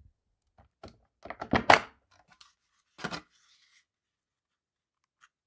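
Plastic knocks and scrapes of a Milwaukee M18 battery pack being slid off its charger and handled: a few light taps, a louder clunk about a second and a half in, and one more knock about three seconds in.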